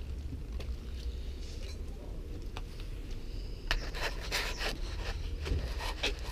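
Low rumble of wind and handling noise on a handheld camera's microphone, with a few faint clicks. From a little before four seconds in comes a close run of scraping and rustling.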